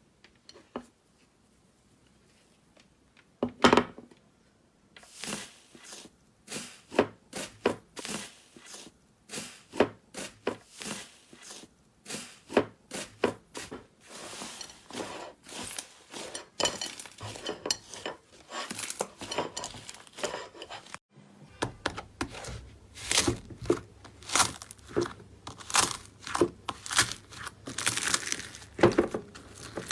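Slime being squeezed and pulled by hand, giving a dense run of crackling, crunchy pops after a nearly silent first three seconds and a single sharp click. About 21 seconds in, the sound cuts to another slime clip with a low steady hum beneath the crackling.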